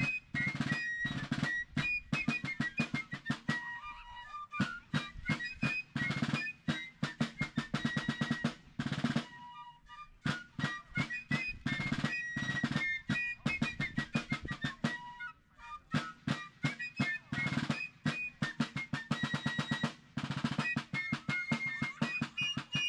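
Background music with a fast, steady drum beat and a high melody over it.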